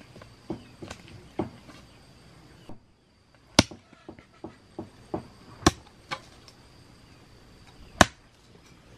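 Chopping strikes: a run of quick, dull hits, then after a brief break three sharp, loud chops about two seconds apart with lighter taps between them.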